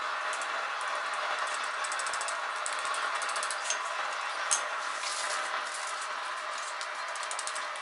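Steady mechanical noise from a workshop tool, with a fast run of rattling clicks through it and one sharper click about four and a half seconds in.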